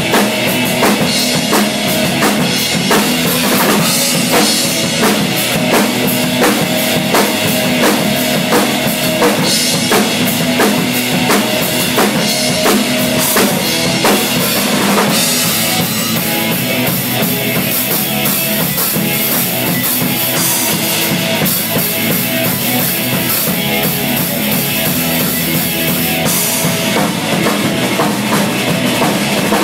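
Acoustic drum kit played in a steady beat of bass drum, snare and cymbals, with the cymbal wash growing brighter about halfway through.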